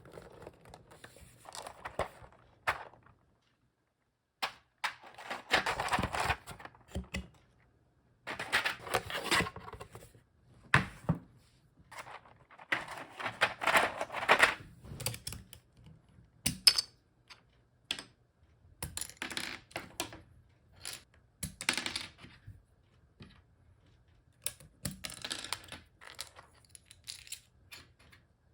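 Plastic keycaps clattering and clicking in short irregular bursts, with some rustling of packaging, as an Akko CS Piano keycap set is unboxed. About halfway through, the sound turns to keycaps being pulled off and pressed onto a mechanical keyboard.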